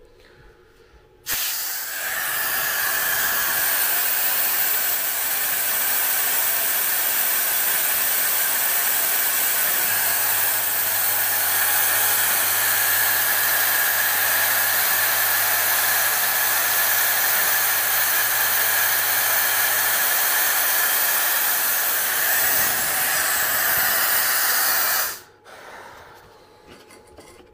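Air assist for a diode laser engraver: a loud, steady hiss of compressed air blowing through the nozzle at the laser head while the laser cuts. It starts suddenly about a second in and cuts off suddenly near the end.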